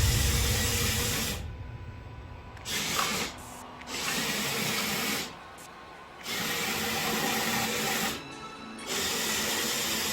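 Small electric motors of a 1:16-scale 3D-printed RC excavator whirring in four short bursts, each one to two seconds long, starting and stopping abruptly as the remote control is worked.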